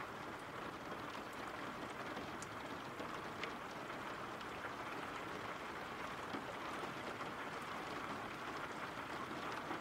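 Steady rain falling: an even, soft hiss with a few faint drop ticks.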